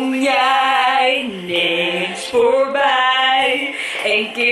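A woman singing long held, wordless notes with vibrato into a handheld microphone, several notes in a row.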